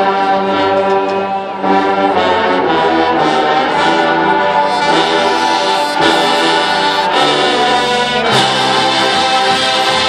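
Marching band's massed brass playing loud sustained chords that shift every second or two, with a few sharp percussion hits in the second half.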